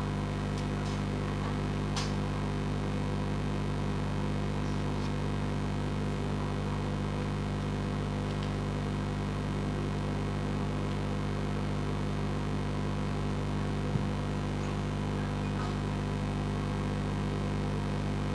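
Steady low electrical hum, with a faint tap about two seconds in and a brief click later on.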